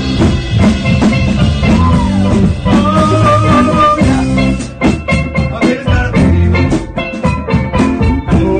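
Live band music: a steel pan played over a drum kit and electric guitar, with a steady beat.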